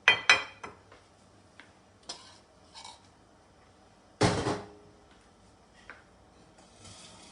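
Serving spoon clinking and scraping against a cooking pot and serving dish as the curry is dished up: two sharp clinks at the start, a few lighter knocks, and a louder clatter about four seconds in.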